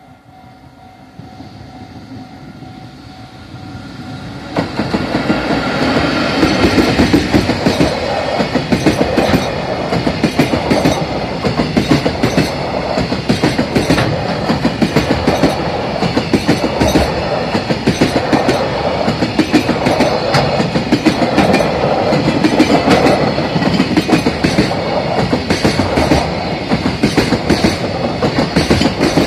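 Faint steady tones at first, then about four to five seconds in a loud, dense mechanical clatter sets in and keeps up a steady rhythm.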